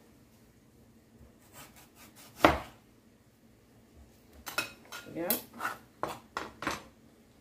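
Chef's knife and metal spoon knocking and scraping on a plastic cutting board as mango is cut up: a few sharp knocks, the loudest about two and a half seconds in, then a quick run of knocks and scrapes in the second half.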